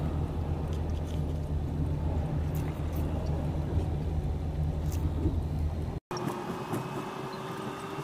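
The 4-tonne truck's diesel engine idling as a steady low hum inside the cab, with a few light clicks. About six seconds in the sound cuts to road noise inside the moving truck's cab, with a steady high whine.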